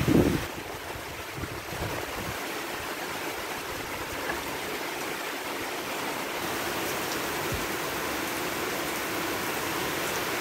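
Steady rushing hiss of running water or rain, even throughout, with a brief knock right at the start as chopped herbs are swept from a wooden board into a clay mortar.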